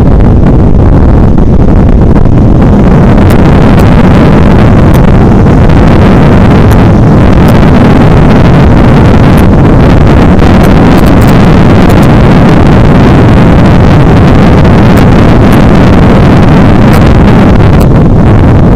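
Motorcycle on the move, heard from a camera on the bike: loud, steady wind buffeting on the microphone mixed with engine and road noise.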